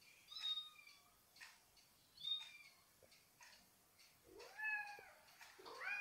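Recorded kitten meows played from a phone under a blanket: four thin, high-pitched meows about two seconds apart, the last two starting lower and rising.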